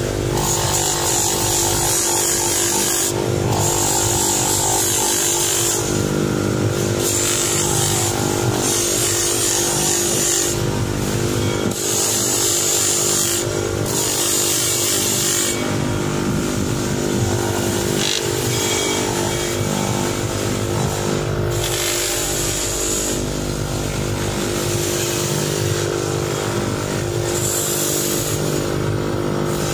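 Polishing machine running with a steady motor hum, its spinning wheel giving a high hiss that comes and goes as a brass shower mixer body is pressed against it and turned by hand.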